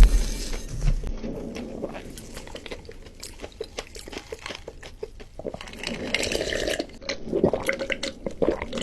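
Close-miked eating sounds: wet chewing and mouth clicks with small crunches, a low thump at the start, and louder wet slurping-like rushes about six seconds in and near the end.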